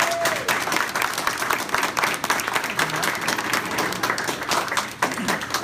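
Audience applauding: many hands clapping together, thinning out near the end.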